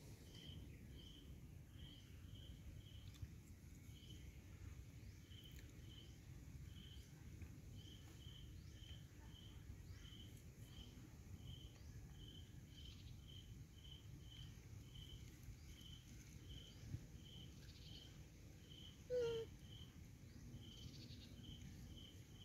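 Faint forest ambience: a short, high, insect-like chirp repeating irregularly, one or two times a second, over a low rumble. A single brief, louder sound comes about nineteen seconds in.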